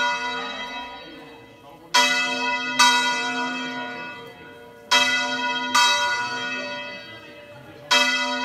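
Church bell swung by hand in full rotation (revolteig), its clapper striking in pairs about every three seconds. Each strike rings on and fades before the next pair.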